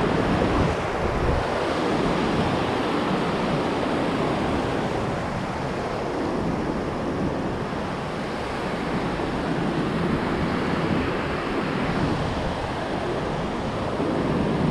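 Ocean surf breaking and washing up a sandy beach, a steady rushing wash, with wind rumbling on the microphone.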